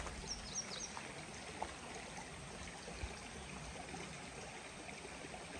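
Steady, even rushing background noise with a few brief high chirps in the first second and some faint ticks.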